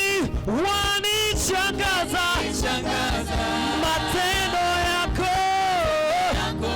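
Swahili gospel praise song: singing voices over a steady band accompaniment, with one long held sung note about five seconds in.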